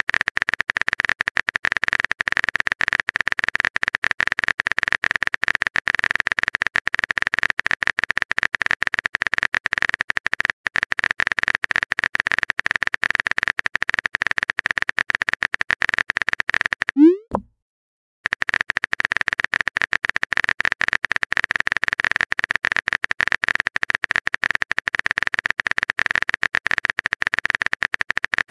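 Typing-click sound effect of a texting-story app: a fast, continuous stream of small clicks. About two-thirds of the way through, a short rising whistle-like glide cuts in, followed by a second of silence, and then the clicking resumes.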